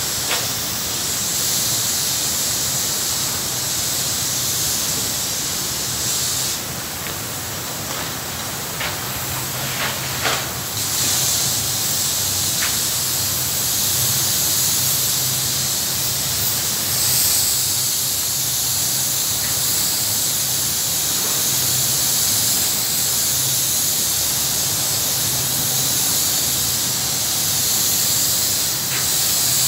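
Phoenix Composites gelcoat spray gun spraying gelcoat as a steady high hiss. The hiss stops about six seconds in and comes back about five seconds later, with a few light clicks in the gap. A low steady hum runs underneath.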